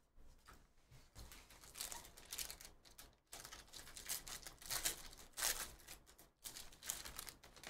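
Foil wrapper of a Panini Donruss basketball trading-card pack crinkling and tearing as it is ripped open and the cards are pulled out, along with cards being flipped through by hand. Irregular crackling rustles, densest past the middle.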